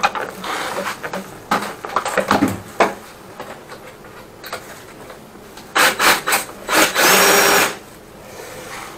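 Drill-driven drain flex-shaft machine: knocks and clatter of handling, then its motor whirs in a few short bursts and one run of just under a second about seven seconds in, stopping abruptly.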